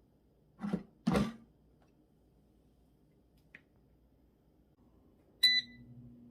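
Two knocks, like items being set down, then near the end a short electronic beep from a kitchen appliance followed by a steady low hum as its motor starts running.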